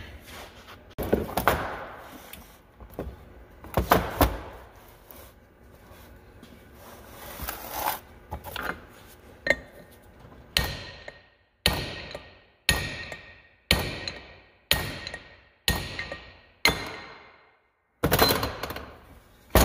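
Wooden blocks knocked into place on a steel bench, then a hammer driving a steel punch through the hub of a cast iron planter closing wheel to knock out its bearings: about nine sharp metal strikes roughly a second apart, each ringing briefly.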